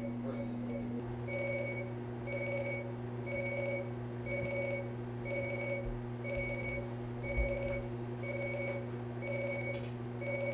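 A nail-fungus treatment laser beeping as it fires on a toenail. Quick short pips in the first second give way to a regular beep about half a second long, once a second, over a steady low machine hum.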